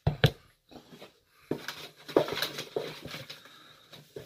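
Hands handling a box: two sharp knocks right at the start, then irregular scraping, rustling and small clicks from about a second and a half in.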